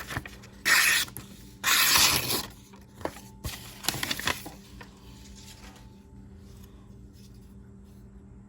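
Kershaw Grinder pocket knife blade slicing through paper: three short rasping cuts in the first half, then quiet handling.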